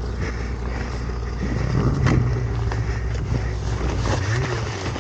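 Snowmobile engine running at low speed. Its pitch steps up about two seconds in and dips and rises briefly near the end.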